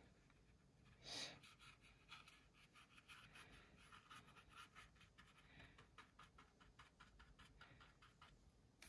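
Faint, quick tapping of a paintbrush dabbing dots of watercolor onto wet paper, several light taps a second, with a short soft rush about a second in.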